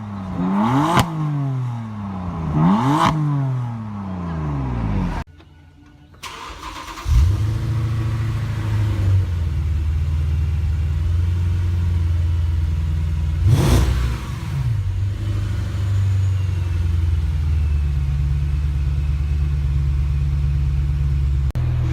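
Performance car engine revved hard twice, each rev rising and falling. After a brief gap, an engine fires up with a loud flare and settles into a steady idle, with one quick throttle blip partway through.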